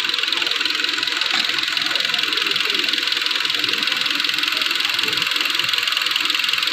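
2014 Kia Optima engine running steadily with a fast, even ticking.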